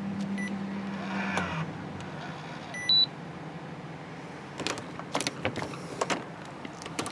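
Electronic door lock being locked: a short motor whirr, high electronic beeps with one loud beep about three seconds in, then a run of sharp clicks and knocks as the door and lock are checked.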